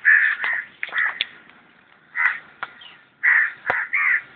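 Crows cawing: about five short, harsh caws at uneven intervals.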